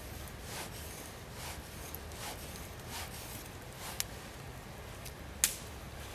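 Carbon-steel bushcraft knife blade shaving curls down a wooden stick to make a feather stick: repeated scraping strokes, about one a second. Two sharp clicks stand out, the louder one about five and a half seconds in.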